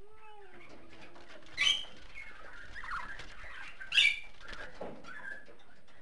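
Budgerigar chirping and chattering. Two loud, sharp chirps come about a second and a half in and about four seconds in, with softer warbling chatter between them.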